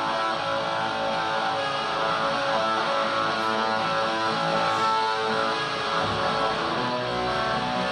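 A band playing live: strummed guitars over bass.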